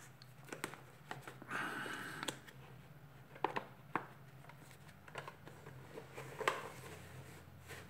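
Hard plastic parts of a Dyson DC37 vacuum cleaner being handled and fitted: faint scattered clicks and light knocks, with a brief rubbing scrape about two seconds in.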